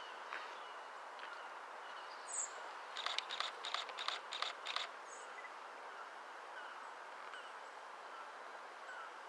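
Steady outdoor background noise, with a quick run of about eight sharp chirp-like clicks a few seconds in and a few faint short downward chirps later on.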